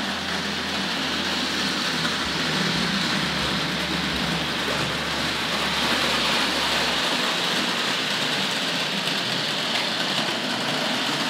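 Hornby Dublo A4 Pacific model locomotive, with its horseshoe-magnet motor, running with tinplate coaches on tinplate track: a steady whirr of motor and wheels on the rails. A low hum underneath drops out about two-thirds of the way through.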